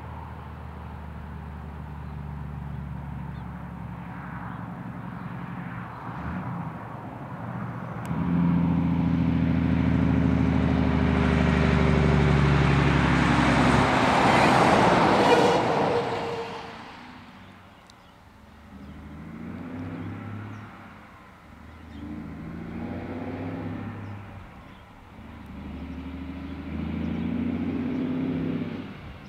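A diesel cab-over semi-trailer truck approaching at road speed: the engine note builds, then a loud rush of tyre and wind noise falls in pitch and fades as it passes, about fifteen seconds in. Then a truck engine rising and falling in surges about every three seconds, growing louder as it nears.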